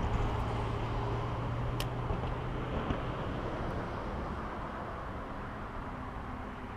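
Low engine hum of a motor vehicle, slowly fading away, over steady background noise. One sharp click about two seconds in.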